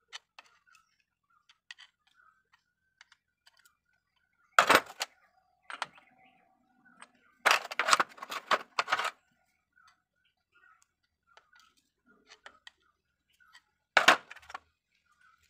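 Hand tools clinking and knocking against metal at a truck's front wheel hub. There are loud sharp clanks about four seconds in, a dense run of them around the middle and another near the end, with light ticks between.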